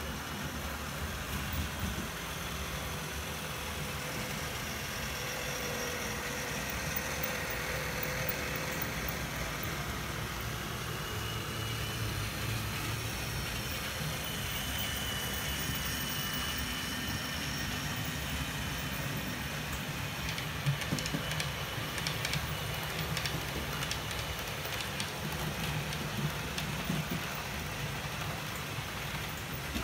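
HO-scale model trains running along the track: a steady motor hum and wheel rumble, with a run of clicks from the wheels over rail joints and points about two-thirds of the way through.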